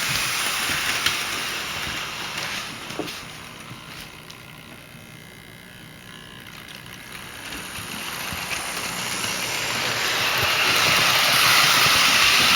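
Hornby Tornado OO-gauge model locomotive and Pullman coach running on the track, a steady whirring hiss of its electric motor and wheels on the rails. It fades as the train moves away around the loop, is quietest about halfway through, and grows louder again as it comes back towards the end.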